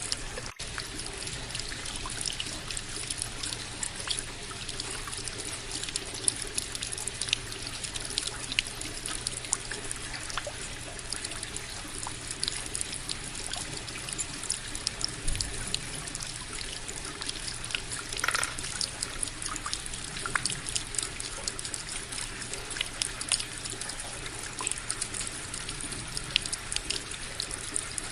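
Indoor tabletop water fountain: water trickling and splashing continuously over the wheel waterfall and the floating balls, with many small drips and splashes over a low steady hum.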